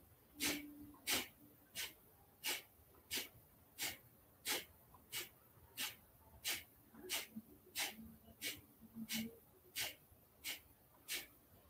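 Kapalabhati breathing: sharp, forceful exhalations through the nose in a steady rhythm of about three every two seconds, each a short puff of breath.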